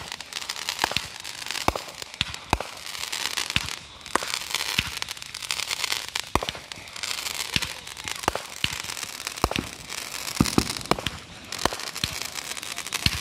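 Aerial fireworks firing shot after shot: sharp bangs about once a second, with a steady crackling hiss of burning sparks between them.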